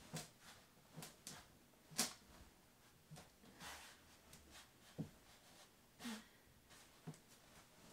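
Faint, scattered taps and clicks of things being handled, with the sharpest tap about two seconds in.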